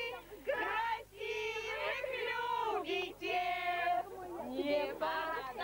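Children singing a song together in sustained, held notes.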